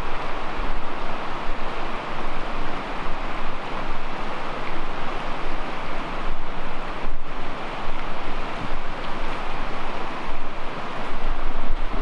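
Small rocky creek rushing over riffles: a steady rush of water, with some low wind rumble on the microphone.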